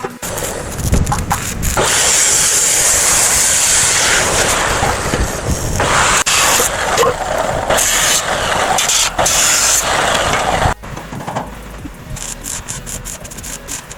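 A power tool runs loudly and steadily for about nine seconds, starting about two seconds in, then cuts off suddenly; scattered knocks and clicks come before and after it.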